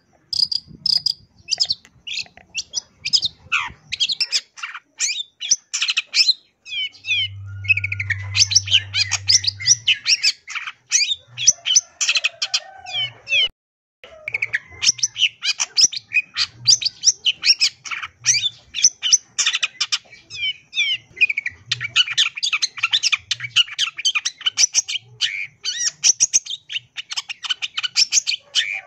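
Long-tailed shrike singing a fast, almost unbroken stream of high chirps and trills, a medley full of mimicked calls, pausing briefly twice.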